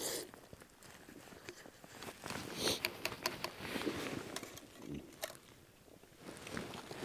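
A short slurp of noodles, then small sharp clicks and soft rustles of close handling.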